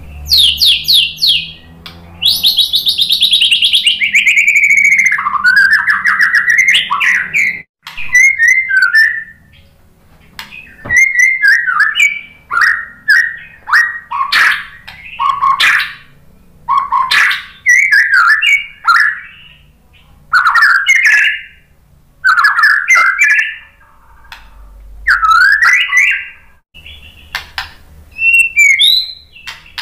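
White-rumped shama singing loudly: quick whistled notes, then a long falling whistle about two seconds in, followed by a run of short, varied phrases about once a second.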